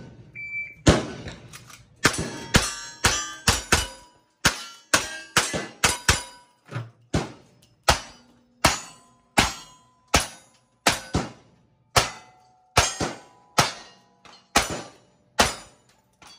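Shot-timer start beep, then a rapid string of about two dozen gunshots from cowboy action guns, a rifle and then single-action revolvers, each shot followed by the brief ring of struck steel targets.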